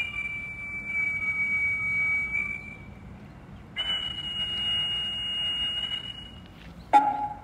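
Music from a karakuri mechanical figure clock: a flute holds long, steady high notes, two of them about three seconds each with a short pause between, then a sharp strike near the end.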